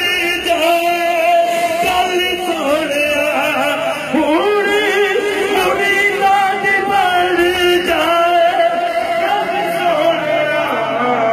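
Men's voices singing a devotional chant, the melody moving in long held, wavering notes.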